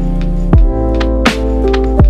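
Background electronic music: held synth chords over a deep kick drum, with one kick about half a second in and another at the end.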